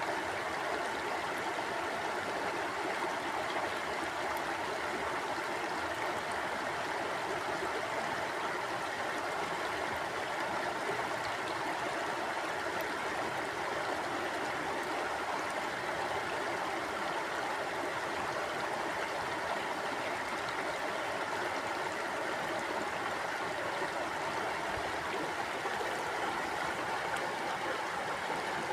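Stream water flowing and gurgling steadily.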